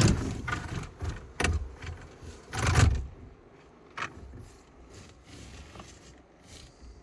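Clatter and clicks of handling metal parts on a car, a few sharp knocks with scraping in the first few seconds, the loudest about three seconds in, then fainter scattered clicks: reconnecting the battery to restore power.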